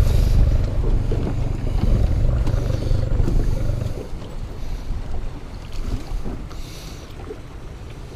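Wind buffeting the microphone on an open boat, a heavy low rumble that drops away about four seconds in.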